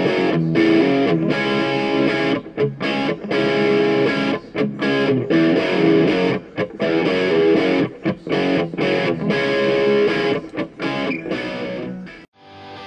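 Background music led by a distorted electric guitar, with a steady rhythm. It briefly drops out near the end, then comes back with a choppier pattern.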